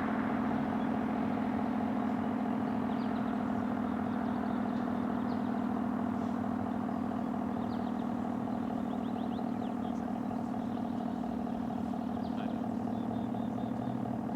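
ACA Screamer S-10 outdoor warning siren sounding a steady tone during its scheduled test, easing off slightly in loudness. Small birds chirp faintly over it.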